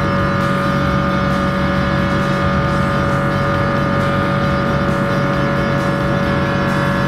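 Boeing 777-300 jet engines at climb power just after takeoff, heard inside the cabin: a steady roar with a steady whine on top.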